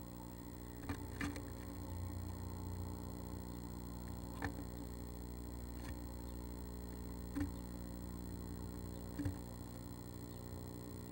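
A female northern flicker moving inside a wooden nest box, making about five sharp knocks and scratches against the wood. A steady electrical hum runs under them.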